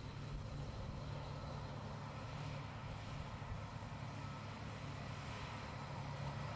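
A motor running with a steady, unbroken hum and a fainter high whine and hiss above it.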